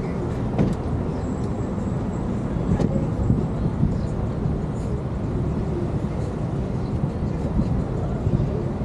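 City street ambience: a steady low rumble of traffic, with a few faint clicks.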